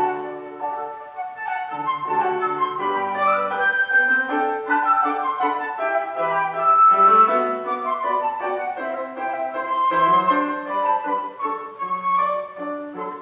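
Live classical music: a concerto solo played with piano accompaniment, a continuous melodic line moving quickly over sustained low notes and chords.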